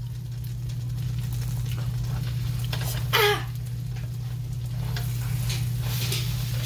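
Buttered bread rolls sizzling as they toast in a frying pan, with small ticks as they are shifted about by hand. A brief high squeak about three seconds in, over a steady low hum.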